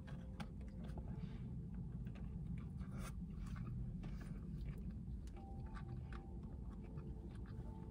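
A person biting into a Big Mac and chewing it, with small wet mouth clicks and smacks scattered throughout over a low steady rumble.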